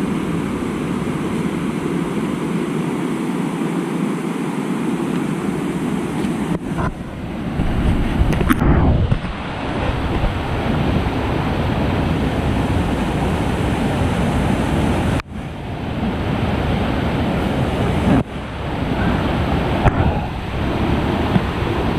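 Fast floodwater rushing over rocks in a swollen river: a steady, loud wash of water, with wind buffeting the microphone. The sound shifts abruptly a few times.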